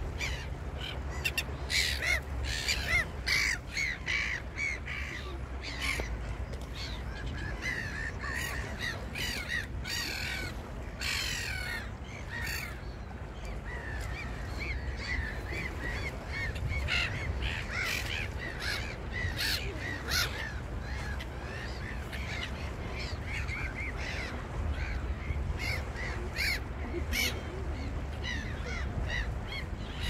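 Birds calling over and over in short, scratchy calls, thicker in the first half, easing briefly, then picking up again, over a steady low rumble of beach ambience.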